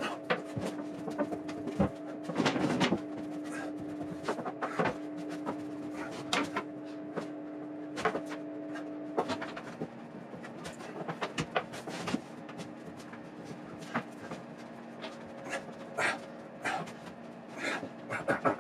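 Handling noise inside a wooden cupboard: rustling, clicks and knocks as a thick black line is worked along the back of the shelf. Underneath runs a steady hum that drops slightly in pitch about nine seconds in.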